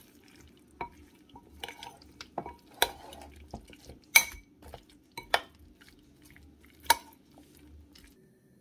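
A metal spoon stirring and tossing soft, spice-coated vegan beef pieces in a glass bowl: soft scraping broken by about seven sharp, irregular clinks of spoon against glass, the loudest about four seconds in.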